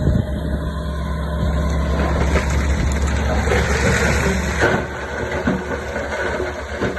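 Heavy diesel earthmoving machinery running with a steady low drone, and a rougher rattling stretch from about two seconds in. The drone weakens near five seconds.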